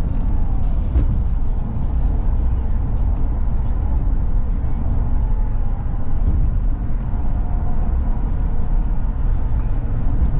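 Steady low rumble of tyre and wind noise heard inside a car cabin while driving at freeway speed.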